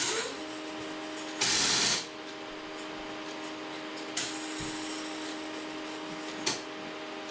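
Epson LQ2070 dot-matrix printer's carriage stepper motor driven at 5,000 steps per second, running with a steady whine. At the start and again about a second and a half in come two loud, harsh, hissing rasps, each about half a second long: the carriage hitting its end stop and the motor jumping because it can't move any further. Later there are two short knocks, about 4 and 6.5 seconds in.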